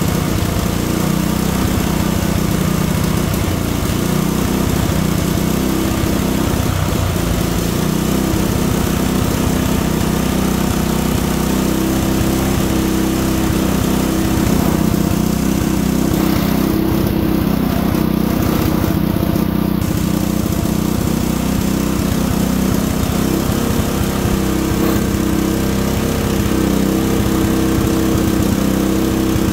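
Portable generator's small engine running steadily under load, with an even hum that does not change.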